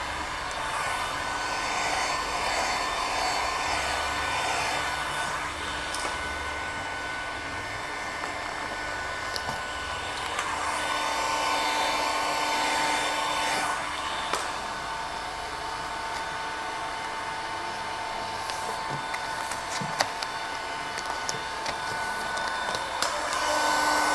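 Electric heat gun blowing hot air onto vinyl wrap film, heating it to soften it at the corners and edges. It is a steady rushing blow, and its motor whine strengthens and fades as the gun is moved. There are a few light clicks and taps.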